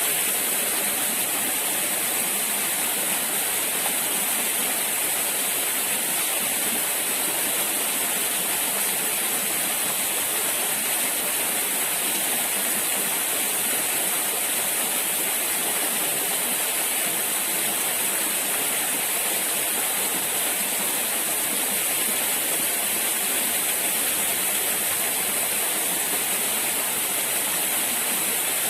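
Steady, loud rushing of flowing water, unbroken and even throughout.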